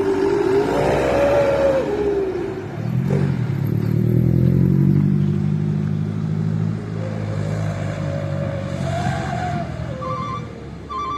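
Light tanker truck pulling away with its engine accelerating, its whistle exhaust giving a rising and falling wolf-like howl twice, about a second in and again from about seven seconds. Short electronic beeps begin near the end.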